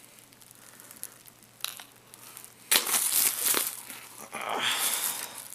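Plastic bubble wrap crinkling under the laptop and hands, in two bursts: one a little past the middle and one near the end.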